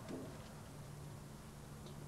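Quiet background with a faint steady low hum.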